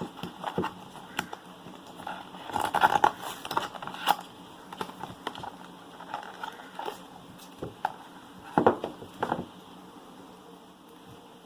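Hands handling smartphone packaging: crinkling and rustling with scattered small clicks and knocks, busiest about three seconds in and again near nine seconds.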